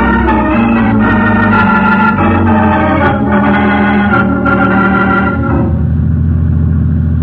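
Organ music bridge: a dramatic sting of held chords changing several times, thinning to a low held note about five and a half seconds in. It marks the scene change after the climactic accusation in a radio drama.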